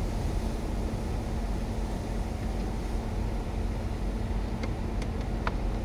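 Steady low rumble of strong wind on the microphone, with a faint steady hum under it and a few brief clicks near the end.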